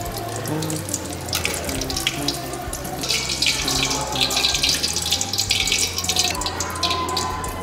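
Cassava nuggets frying in hot oil in a wok, a dense crackling sizzle that grows loudest in the middle while the pieces are stirred and lifted out with a wire skimmer.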